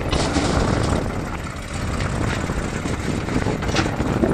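Sonalika DI 47 RX tractor's diesel engine running under heavy load as it pulls a fully loaded trolley over rough dirt, with a backhoe loader's engine running close by.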